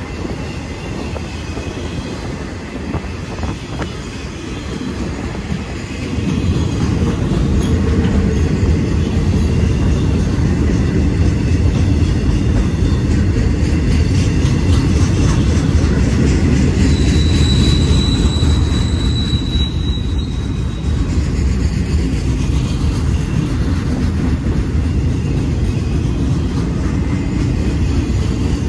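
Enclosed autorack freight cars rolling past close by: a steady, heavy rumble of steel wheels on rail that grows louder about six seconds in. About two-thirds of the way through, a high wheel squeal rings for about three seconds.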